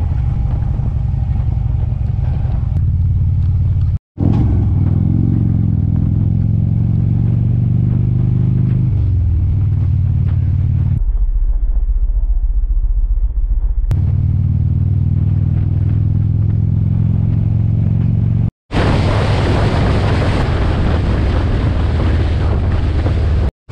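A motorcycle engine running on the move. About four seconds in it accelerates, rising in pitch before dropping back on a shift. Wind noise on the microphone grows louder near the end, and the sound breaks off briefly a few times.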